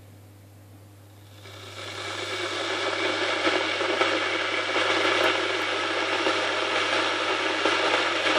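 Electric kettle heating water: about a second in, a crackling hiss from the heating element rises over roughly two seconds, then holds steady and loud. This is the sound of bubbles forming and collapsing on the hot element as the water heats toward the boil.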